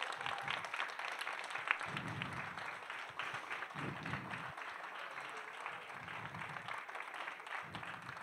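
Audience applauding, a dense patter of many hands clapping that slowly thins out and quietens.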